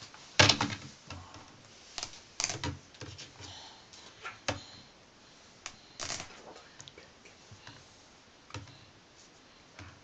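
Irregular clicks and knocks of a hard plastic toy turtle shell being handled and set against a tabletop, the loudest about half a second in.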